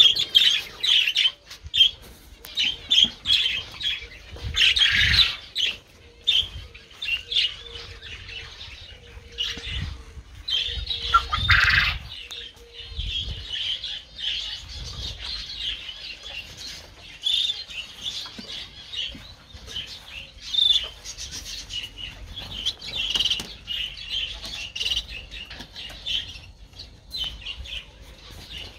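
Small aviary birds chirping and chattering in a dense chorus of short, high calls, with two louder bursts about five and eleven seconds in.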